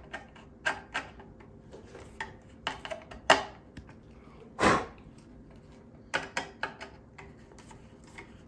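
Scattered metallic clicks and clinks of a hand tool tightening the screws on the gas tank's metal brackets, with one louder scrape about halfway through.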